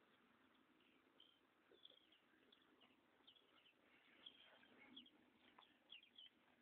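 Near silence with faint, scattered bird chirps, short and many of them falling in pitch.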